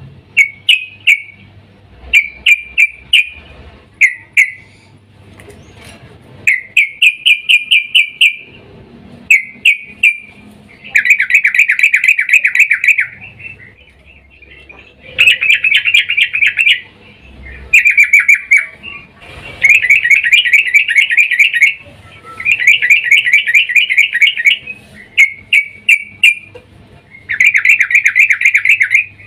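Yellow-vented bulbul (trucukan) calling loudly in a series of fast, chattering trills, each burst of rapidly repeated notes lasting about half a second to two seconds with short pauses between. It is presented as a female's call to lure and excite a male.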